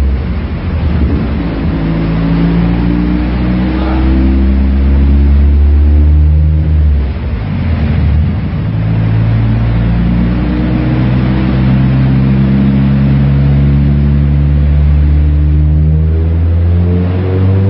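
Stroked 2.0-litre four-cylinder engine of a tuned Seat Leon running on a chassis dyno, held at steady revs with a brief dip about seven seconds in, then starting to rev up near the end as the pull begins.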